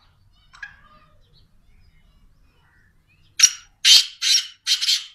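Black francolin calling: a faint short chirp about half a second in, then four loud, harsh notes in quick succession over the last two seconds.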